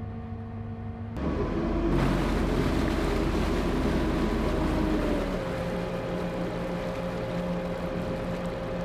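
Motor cruiser's engine revving up as the throttle lever is pushed forward about a second in, with propeller wash churning the water at the stern. After about five seconds it settles into a steadier running note.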